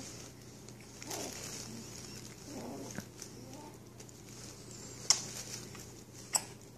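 A small pet animal eating banana: soft, wet chewing and smacking, with two sharp clicks about five and six and a half seconds in.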